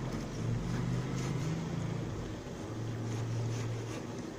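A low motor hum that shifts in pitch a couple of times, with a few faint taps of a cleaver on a wooden cutting board as raw pork is cut.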